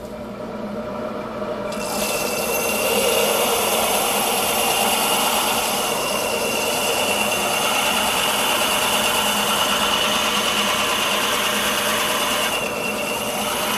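A fused-glass bowl ground on a wet flat lap grinder: the glass edge pressed against the spinning metal disc gives a steady gritty grinding with a high whine. It builds over the first two seconds and eases briefly about a second before the end.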